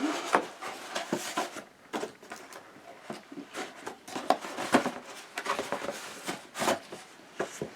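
Cardboard packaging being handled and opened by hand: irregular scrapes, rustles and light taps, with a few sharper knocks.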